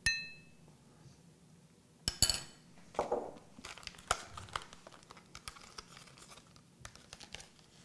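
A spoon clinks against a dish with a short ringing tone right at the start, and again with a few rattling clinks about two seconds in. Soft scraping and scattered light clicks follow as whipped cream is spooned from the mixer bowl into a glass.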